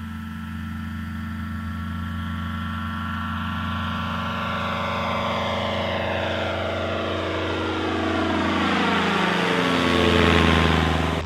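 Two-stroke engine of an Avid light aircraft at climb power as it takes off and flies overhead. It grows louder toward the end, with tones sliding down in pitch as it passes.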